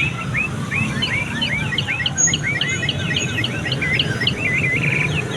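Toy bird showpiece chirping: a quick run of short, repeated chirps, several a second, over a steady low background rumble.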